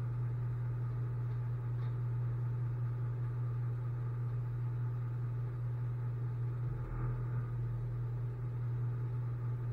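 Tow truck's engine idling, heard as a steady low hum; the hum wavers briefly about seven seconds in.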